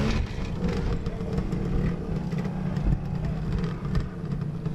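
Vintage trial motorcycle's engine running at low revs under load as the bike climbs a rock step, with a brief rise in revs near the start.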